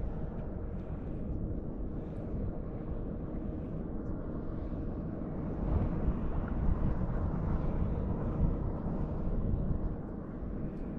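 Low, fluctuating rumble of wind on the microphone, louder for a few seconds from about halfway, with a faint steady hum underneath.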